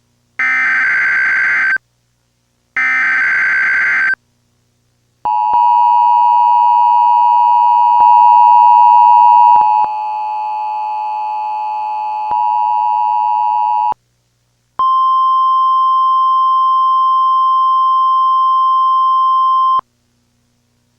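Emergency Alert System tones: the last two bursts of the harsh, buzzy SAME header data tones about a second apart, then the two-tone attention signal for about nine seconds, then a steady single high tone for about five seconds.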